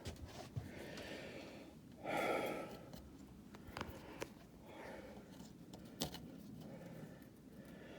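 A man breathing out hard once, about two seconds in, with a few light clicks and taps scattered through the rest.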